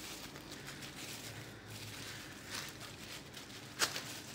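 Faint rustling of a plastic glove and parchment paper as a date-and-nut mixture is spread and pressed into a lined tray with a silicone spatula, with a sharp tap near the end.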